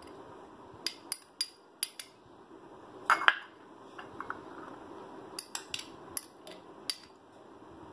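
A steel spoon clinking and tapping against glass bowls as chopped onion and tomato are scraped out into a bowl of corn. Each tap is a short, sharp click, and there is a louder clatter about three seconds in.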